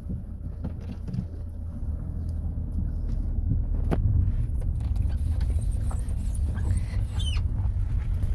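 Low rumble of a car's engine and tyres heard from inside the cabin as it drives off down a street, getting louder about four seconds in as it gathers speed, with a few light clicks and a brief high squeak about seven seconds in.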